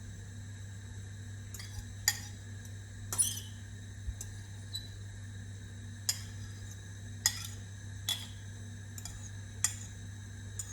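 Metal utensil clinking against dishes: about eight sharp, ringing clinks at uneven intervals, over a steady low hum.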